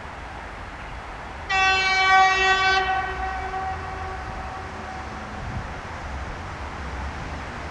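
ChS4T electric locomotive sounding one short horn blast about a second and a half in. It is a single steady note lasting just over a second, then trailing off faintly for a couple of seconds, over a steady low rumble.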